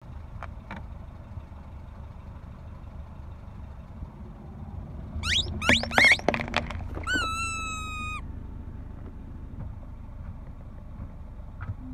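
Car tyre rolling over spiky rubber squeaky toys: a quick run of loud squeaks about five seconds in as they are crushed, then one long whistling squeak lasting about a second as the air is forced out. A low car engine runs steadily underneath.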